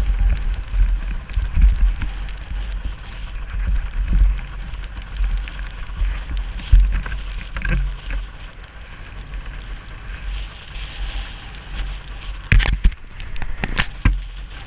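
Wind buffeting the microphone in gusts in a snowstorm, over the faint running of a snowmobile engine. A few sharp knocks come in a quick cluster near the end.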